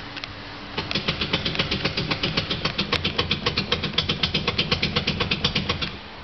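Steering rack of a 2007 Opel Antara knocking: a fast, even run of metallic knocks, about seven a second, starting about a second in and stopping near the end. This is the steering-rack knock fault the car is being checked for.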